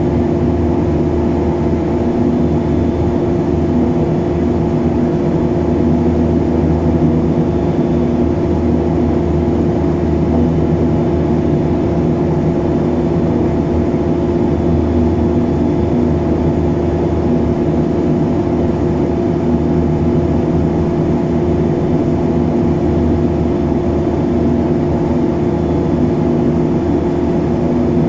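Twin Garrett TPE331 turboprop engines of a BAe Jetstream 32, heard from inside the cabin, running steadily. It is an even drone with a few constant pitched tones that do not change.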